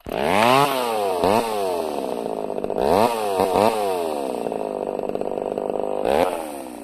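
Chainsaw revving up and down, its pitch rising and falling several times in quick succession, then running more steadily before one last rev about six seconds in and a drop in level at the end.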